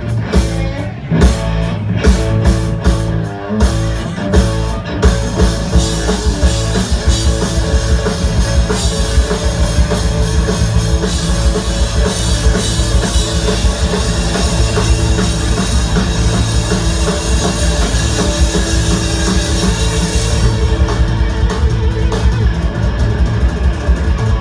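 Live band playing an upbeat rock-style song through a PA, with a drum kit keeping a steady beat under guitars. The high end fills with a dense wash from about five seconds in and thins out near the end.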